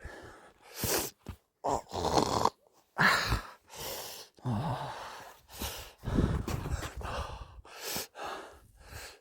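A woman's strained breathing, gasps and groans as she struggles in the cold, with one falling groan about halfway through and several short bursts of noise in between.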